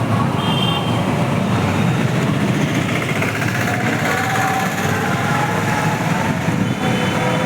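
Steady, loud vehicle noise that does not let up, with faint high tones briefly near the start and near the end.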